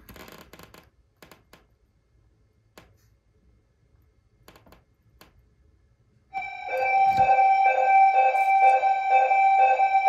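A few faint clicks as a key is touched to a fire alarm monitor module's terminals, then, about six seconds in, the fire alarm system's notification appliances start a loud, steady electronic alert tone with a slight pulsing. It is the signal for a weather-alert input on a supervisory, non-latching monitor module.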